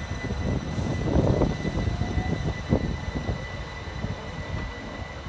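c2c Class 357 Electrostar electric train moving past the platform, its wheels rumbling with a run of clattering knocks over the rail joints, loudest between about one and three seconds in.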